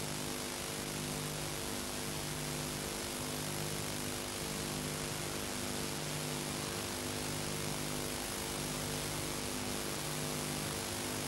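Steady hiss with a low hum that swells and fades about every second and a half, the background noise of an old analogue home-video recording.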